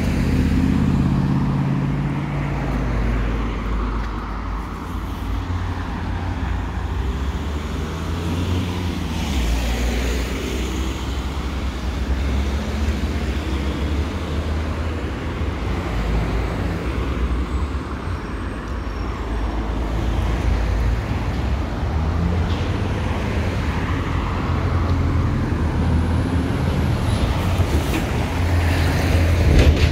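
Town street traffic: steady road noise from passing cars and other motor vehicles, with an engine passing close near the start.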